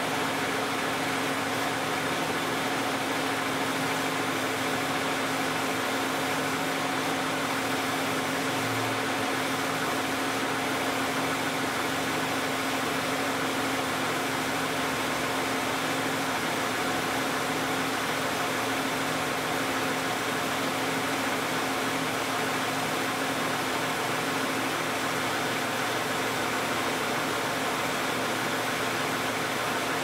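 Toyota 2GR-FE 3.5-litre V6 in a 2010 Camry with 161,500 miles, idling steadily while warming up after a cold start: an even hum with a steady hiss and no knocks or changes in speed.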